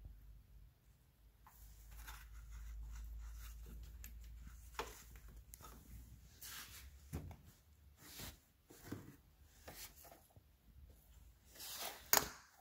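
Handling noises: scattered light knocks, clicks and scrapes, with a sharper knock near the end, over a faint low hum that fades out about halfway through.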